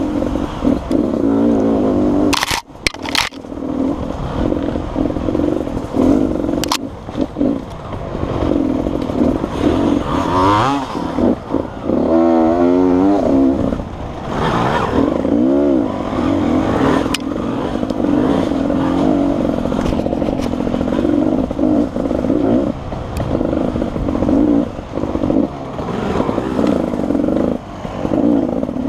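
Beta RR 300 two-stroke enduro motorcycle engine being ridden hard, its pitch rising and falling as the throttle opens and closes, heard close up from the rider's helmet. A few sharp knocks a few seconds in.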